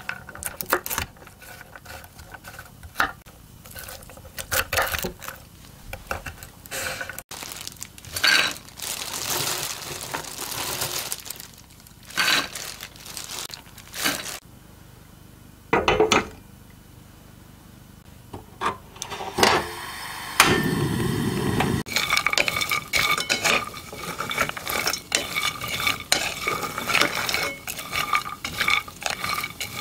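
A knife chopping walnuts on a wooden cutting board, a run of quick sharp knocks, then walnut pieces handled into a coated pot and stirred with a wooden spatula, a steady dense rattle and scrape of nuts against the pot in the last third. A short rush of noise comes about two-thirds through.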